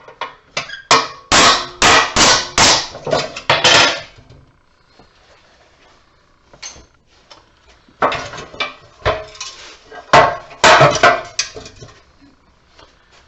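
Hammer blows on a light fixture being broken up for scrap. A quick run of about a dozen sharp strikes comes first, then a pause of a few seconds, then another run of strikes.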